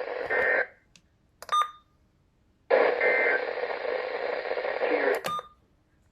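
Weather radio broadcast ending its alert: a band of static hiss carrying a short two-tone digital warble, the end-of-message data burst, about a third of a second in and again about three seconds in. Each time the hiss then cuts off. Short electronic beeps and clicks sound in the gaps.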